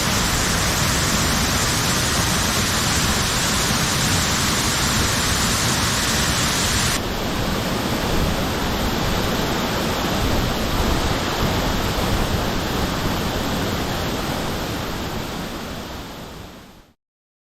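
Waterfall water falling and splashing, a steady rushing noise. About seven seconds in it turns abruptly duller, with less hiss, and near the end it fades out to silence.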